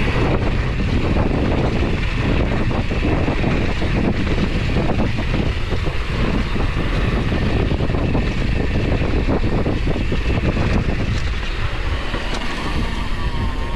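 Wind buffeting the microphone of a camera on a moving rider, over a continuous rough rumble from the ride itself.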